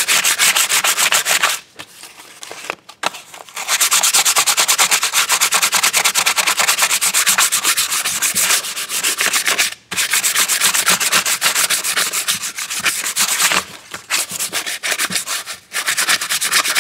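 Hand sanding a hardwood block with a sheet of sandpaper: rapid back-and-forth rubbing strokes, with a quieter stretch about two seconds in and brief breaks near ten and fourteen seconds.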